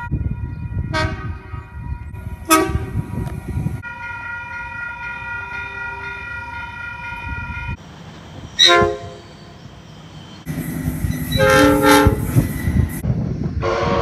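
Train horns in quick succession. An electric passenger train sounds two short multi-note toots while departing, then a steady multi-note horn is held for about four seconds. A diesel freight locomotive gives one short blast, and near the end a louder horn chord sounds for about two seconds as another train approaches over running rumble.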